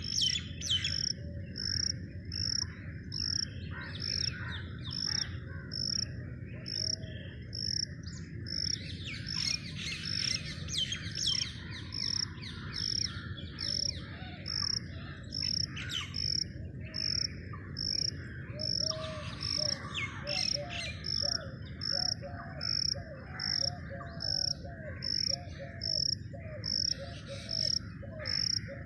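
Birds singing, with varied chirps and warbles coming and going, over a short high chirp that repeats steadily about once a second. A steady low background noise runs underneath.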